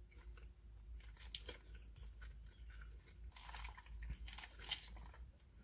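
Faint biting and chewing of a toasted sub sandwich, with scattered small crunches.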